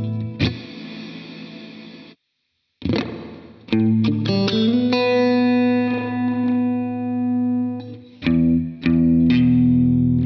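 Electric guitar played through a FLAMMA FS02 reverb pedal: a strummed chord rings and decays, the sound cuts out completely for about half a second, then picked notes build into sustained chords with a long reverb tail, with three more strums near the end. The part after the gap is the pedal's spring reverb setting.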